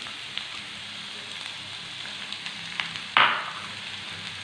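Finely chopped onion frying in hot oil, a steady sizzle with a few small crackles. About three seconds in there is a louder spurt of sizzle that fades quickly.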